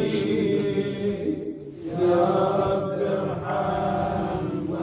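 A man's voice chanting an Arabic devotional supplication in a slow, drawn-out melody, breaking off briefly about one and a half seconds in and then carrying on.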